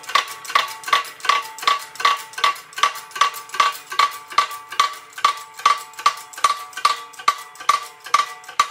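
Hand pump handle of a 20-ton hydraulic shop press being worked quickly, a sharp metallic clack with a short ring about two or three times a second, as the ram is lowered to press a new front wheel bearing into the steering knuckle.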